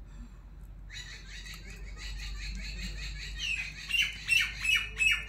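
Small birds chirping in a rapid, repeated series, starting about a second in and growing louder and sharper near the end.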